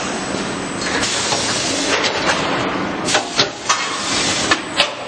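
Sleeve shrink wrapping machine on a welding coil packing line running, a steady machine noise and hum. Starting about a second in, a series of sharp mechanical clacks breaks through it.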